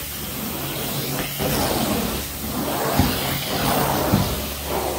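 Carpet-cleaning equipment running: a steady low machine hum under a hiss, with whooshes that swell and fade every second or so.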